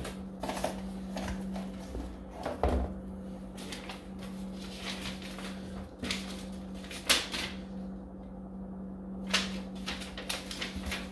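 Paper and plastic packaging being handled while a cardboard box is unpacked: a sheet of paper unfolded, with scattered rustles and crinkles, the sharpest about seven seconds in. A steady low hum runs underneath.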